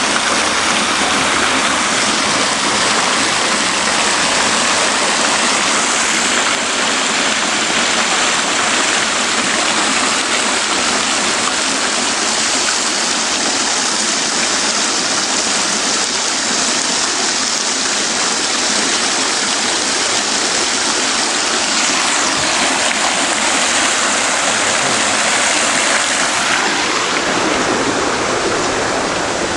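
Fountain water splashing and rushing steadily, its tone shifting a little near the end.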